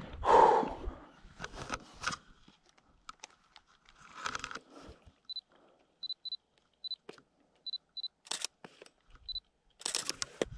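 Canon DSLR camera shutter firing in short bursts of clicks, with short high autofocus-confirmation beeps, some in pairs, between the bursts. A brief loud handling noise comes about half a second in.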